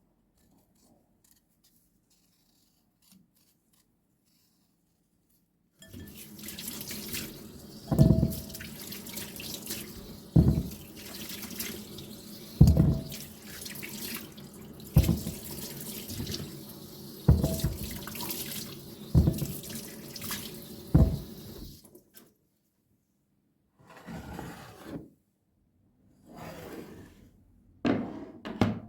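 Water running from a kitchen tap for about sixteen seconds, starting several seconds in, with loud knocks roughly every two seconds, then a few short runs of water near the end.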